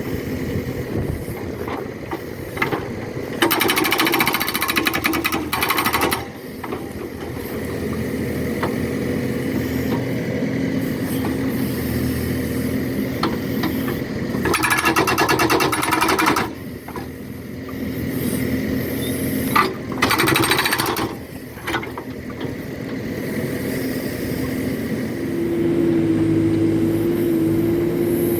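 Backhoe-mounted hydraulic rock breaker hammering in three bursts of rapid, even blows, a few seconds each, while the backhoe's diesel engine runs throughout. Near the end the engine settles into a steady higher note.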